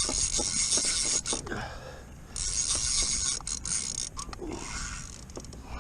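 Fishing reel's ratchet clicker buzzing as a hooked fish takes line, stopping briefly about two seconds in and easing off near the end.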